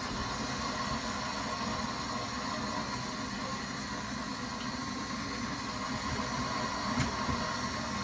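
Kitchen tap running steadily into the sink while a wooden cutting board is rinsed under it, with a light knock about seven seconds in.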